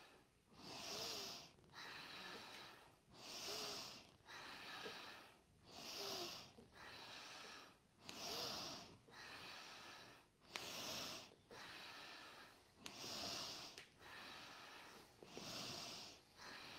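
Deep, rhythmic breathing of people exercising hard, a louder breath then a softer one, repeating about every two and a half seconds in time with repeated squat-and-straighten yoga movements. Two short clicks about two-thirds through, which the instructor takes for knees clicking.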